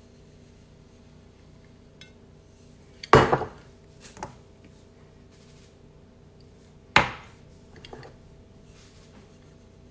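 Two sharp knocks of a measuring cup against a stainless steel mixing bowl, about four seconds apart, each with a short ring and followed by a lighter clink, while cupfuls of an ingredient are measured into the bowl.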